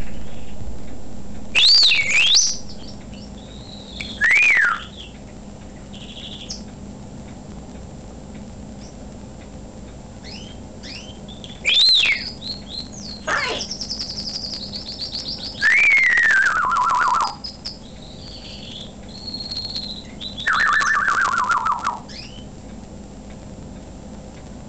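African grey parrot whistling a string of phrases with pauses between: quick swooping whistles that rise and fall, and two longer warbling whistles that slide steadily downward in pitch. The whistles are its own inventions after hearing birds outside.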